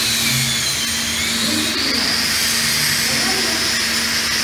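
Stick-welding arc from a 7018 electrode on steel pipe: a steady hiss.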